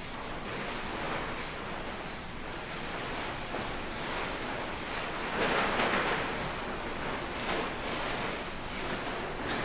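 Rustling of a large sheet-covered sculpture as performers move underneath it: a dense, uneven swishing that swells and fades, loudest about six seconds in.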